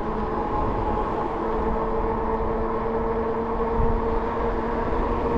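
Rad Rover fat-tyre e-bike cruising on pavement under pedal assist: a steady whine from its 750-watt rear hub motor and 4-inch tyres, over a low rumble of wind and road.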